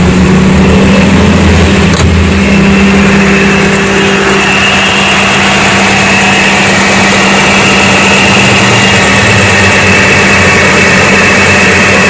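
Hyundai Atoz's four-cylinder engine idling with the air conditioning switched on, recorded up close in the engine bay. There is a single click about two seconds in, and a thin high whine joins about four seconds in and holds steady.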